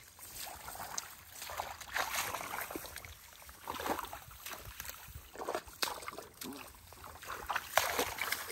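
Boots and hands sloshing and squelching through shallow, soupy mud and water, in irregular splashy bursts.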